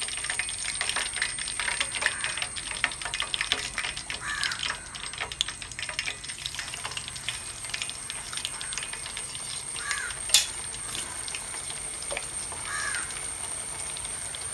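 Chicken pieces frying in hot sunflower oil, a dense crackle and sizzle that is busiest in the first few seconds and then settles. Crows caw three times outside, and there is one sharp click a little after ten seconds.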